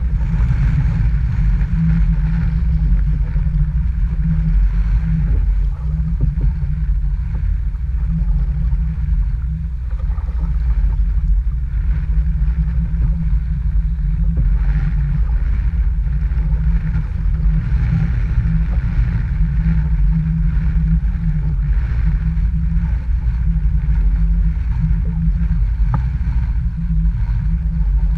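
Strong wind buffeting the microphone: a loud, steady, unpitched rumble with a fainter hiss above it.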